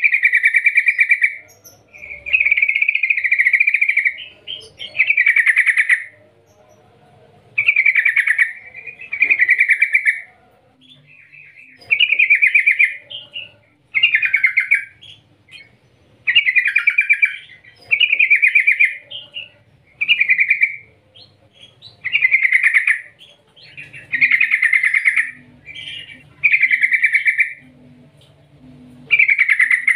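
Yellow-vented bulbul singing a run of short phrases, one about every two seconds.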